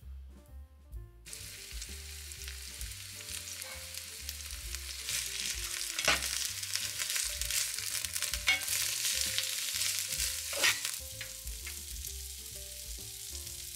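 Peas and sliced spring onions frying in oil in a non-stick pan, sizzling from about a second in and growing louder through the middle. A spatula stirs them, knocking against the pan a few times.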